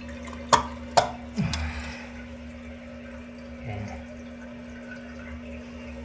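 Toilet cistern refilling through a newly replaced fill valve, water running steadily into the tank, with two sharp knocks about half a second and a second in.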